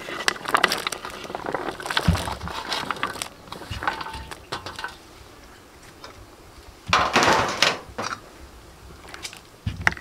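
Papaya slices tipped off a metal tray into a pot of boiling water: a run of clattering knocks and splashes over the first few seconds, then quieter. Near the end comes a brief loud rushing noise, and more clicks as a ladle goes into the pot.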